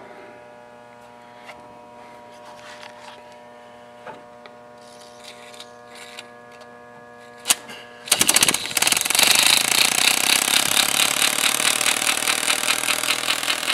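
Homemade pulse motor being started: a faint steady electrical hum with a few small clicks, a sharp click about seven and a half seconds in, then about eight seconds in the motor starts running with a loud, rapid, even chatter as its whisker switch makes and breaks contact, sparking to fire the drive coils while the wheel spins.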